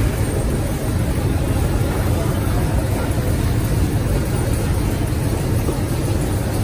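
Automatic roti-making machine running steadily: its motor-driven dough rollers, cutter and conveyor make a constant low-pitched mechanical noise with no clear beat.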